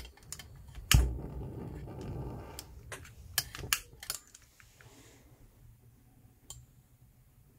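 A long-nosed lighter clicking again and again at the burner of a Barthel benzine camping stove, with one louder knock about a second in, during an attempt to light the burner. The clicks thin out after about four seconds, with one more near the end.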